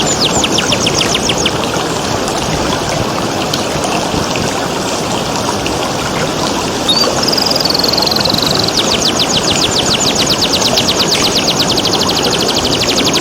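Domestic canary singing fast trills of rapidly repeated, falling high notes, breaking off about a second and a half in; it gives a held, buzzy note about seven seconds in and then returns to the rapid trill. Beneath it runs the steady rush of flowing water.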